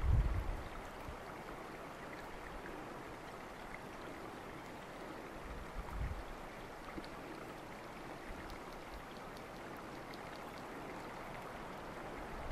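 Steady rush of flowing stream water, with brief low rumbles of wind on the microphone at the start and again about six seconds in.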